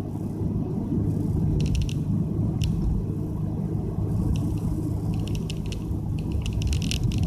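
Nissan Fuga 350GT's 3.5-litre V6 running through a one-off quad-tip exhaust, a steady low rumble heard from inside the cabin. Scattered clusters of light rattling clicks ride over it.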